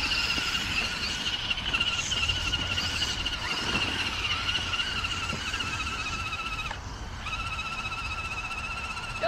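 RC truck's electric motor whining at a nearly steady pitch, broken off briefly about seven seconds in.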